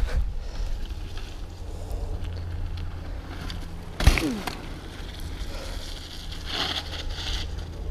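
Mountain bike rolling down a wet, icy dirt trail: a steady low rumble of tyres and riding noise, with one sharp knock about four seconds in.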